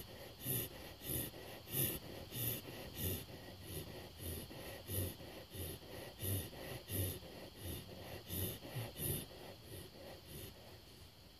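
Dog breathing rapidly and rhythmically, about three breaths every two seconds, growing fainter near the end.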